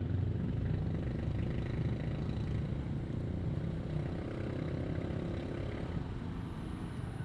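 A motor vehicle engine running steadily nearby: an even, low rumble.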